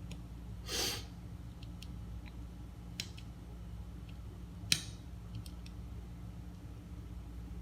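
Small parts of a turntable mechanism being handled. There is a brief rustle about a second in, a sharp click at three seconds and a louder click near five seconds, with light ticks in between, all over a low steady hum.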